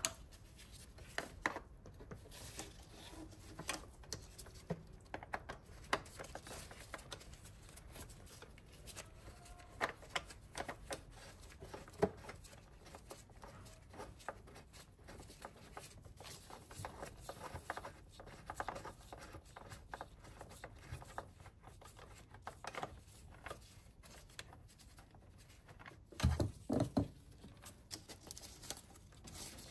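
Scattered clicks, taps and scrapes of hand tools and loosened metal parts being handled while the intake manifold bolts are undone and the manifold is worked free, with a few louder knocks near the end.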